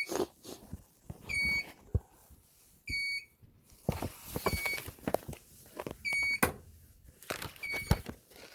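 2020 Ford Transit power sliding door's warning beeper sounding a short, high beep about every second and a half, with sharp knocks and clunks in between.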